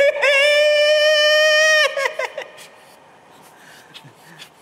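A person's high-pitched cry, held at one pitch for about a second and a half and then breaking off into short wavering sounds: a ticklish reaction to a puff of air on the ear.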